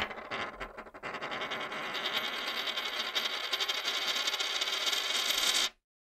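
Logo-animation sound effect: a sudden hit, then a dense, fast fluttering whirr for about five seconds that cuts off suddenly.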